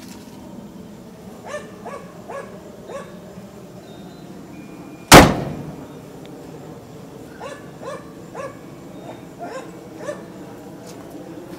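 A single loud slam about five seconds in, the 1960 Ford F100's steel cab door being shut. A dog barks repeatedly around it: a few barks in the first three seconds and more in the seconds after the slam.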